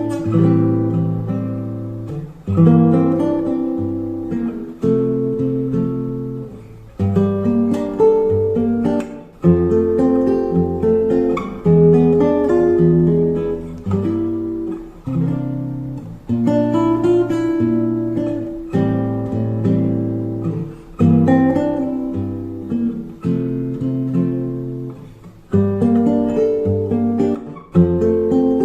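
Acoustic guitar playing a slow instrumental piece, a chord struck about every two seconds and left to ring out.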